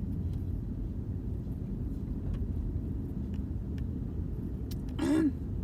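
Steady low rumble of road and engine noise inside a moving car's cabin, with a few faint ticks. A short voiced sound, like a hum, comes near the end.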